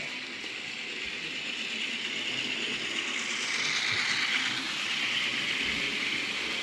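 N scale model train running along the layout's track: a steady high-pitched whir from its small motor and wheels, growing louder about halfway through as it comes closer.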